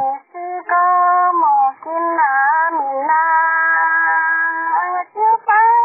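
A woman singing a song with no accompaniment, in long held notes that slide between pitches, with short breaks between phrases. The sound is thin and muffled, with no treble.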